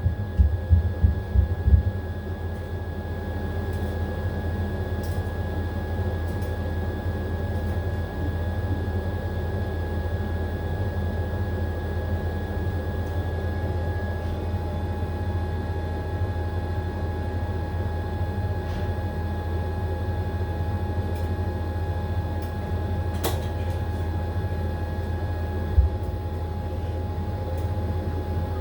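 AQUA AQW-DX12M drum washing machine spinning, with rhythmic thumping in the first couple of seconds. It then settles into a steady deep hum with a thin constant whine. A single click and a single thump come later on.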